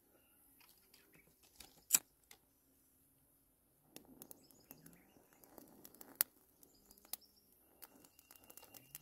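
Faint rustling of a bundle of large fresh leaves tied with vine being handled, starting about halfway through, with a few sharp clicks (one about two seconds in, another about six seconds in).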